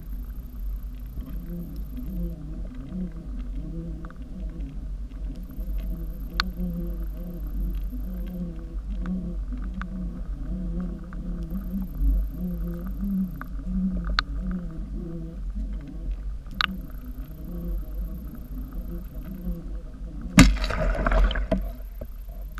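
Underwater sound picked up by a camera in lake water: a steady low rumble with a wavering hum, a few single sharp clicks, and a loud burst of churning water about two seconds before the end, when the lure is near the surface.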